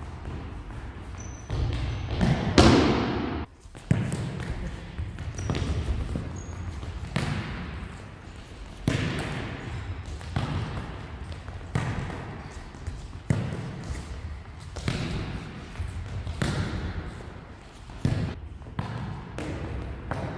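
Football being dribbled and kicked across a wooden sports-hall floor: a sharp knock every second or two, each echoing in the hall, with a louder, longer hit about two and a half seconds in.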